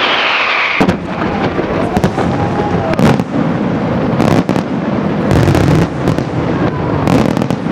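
Aerial fireworks shells going off: a falling whistle at the start, then a quick run of sharp bangs and crackling bursts with low rumbling booms.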